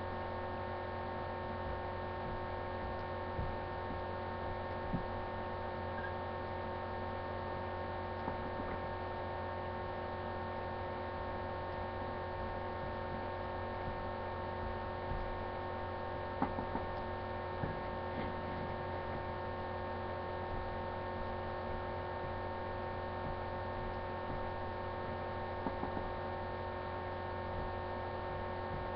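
Steady electrical mains hum, several tones held unchanging, with a few faint ticks.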